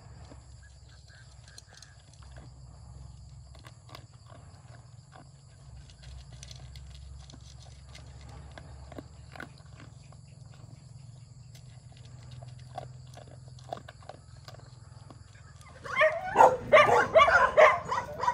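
A dog eating dry kibble from a metal pan: faint scattered crunches and clinks over a low steady rumble. About two seconds before the end, loud, rapid, high-pitched dog calls break out.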